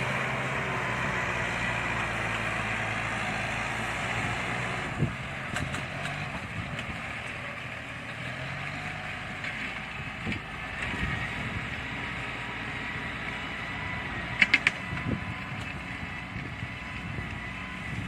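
Kubota farm tractor's diesel engine running steadily, working the paddy. There is a single knock about five seconds in and a few sharp clicks about fourteen seconds in.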